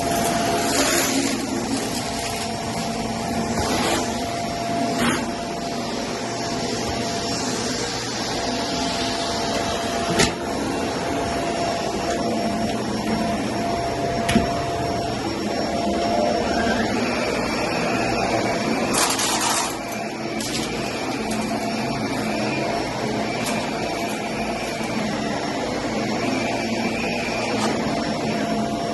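Vacuum cleaner running steadily on carpet with a constant whine, broken by occasional sharp clicks. About two-thirds of the way in, a second, higher whine rises and holds, then fades near the end, and there is a brief loud hiss in between.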